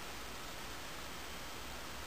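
Steady low hiss of room tone and recording noise, with no distinct event.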